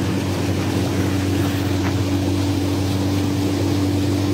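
A small boat's outboard motor running at a steady speed, with a steady hiss of water and wind.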